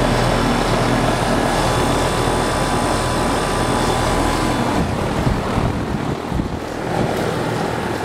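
Outdoor condenser unit of a 2001 Carrier TECH2000 2-ton air conditioner running in cooling mode: the condenser fan's steady rush of air over a steady hum, with a Copeland scroll compressor inside.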